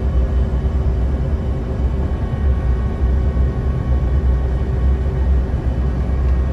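Steady low cabin rumble inside a Bombardier CRJ-700 regional jet descending on approach, with a faint hum of steady tones over it.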